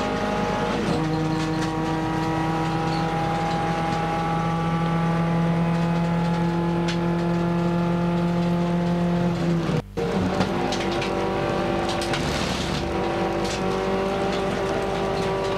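Nissan March Cup race car's engine heard from inside the cabin, running under load at fairly steady revs. Its pitch steps down about a second in, and the sound cuts out for an instant about ten seconds in before carrying on.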